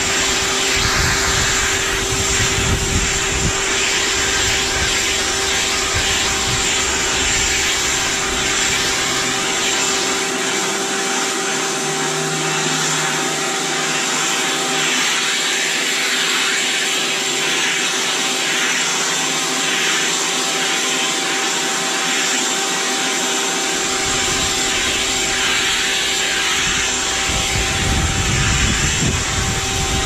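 Vacuum cleaner running steadily with a constant high whine as its hose nozzle is drawn over a dog's coat. A low buffeting rumble underneath stops for a stretch in the middle and returns near the end.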